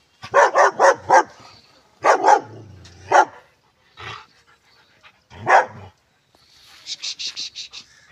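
German Shepherd dog barking in bursts: four quick barks, then a pair, then single barks spaced a second or two apart.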